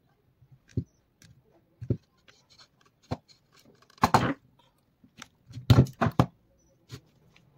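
Scattered clicks and knocks of small hand tools and street-light parts being handled during repair work. Louder clusters of knocks come about four seconds in and again near six seconds.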